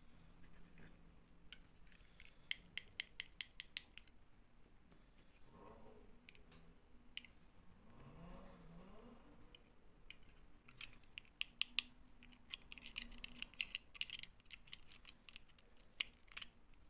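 Faint light clicks and taps of small plastic doll figures and a clip-on plastic doll dress handled by fingers, coming in quick runs of several clicks a second, about two seconds in and again past the middle.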